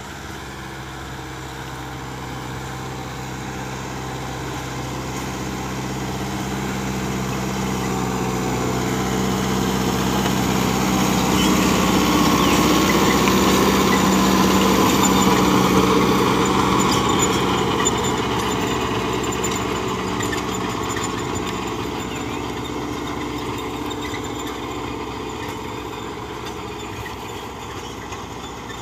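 Kubota MU5501 tractor's four-cylinder diesel engine working steadily under load, driving a Lemken rotavator that tills the soil. It grows louder as the tractor comes near, is loudest as it passes close by about halfway, then fades as it moves away.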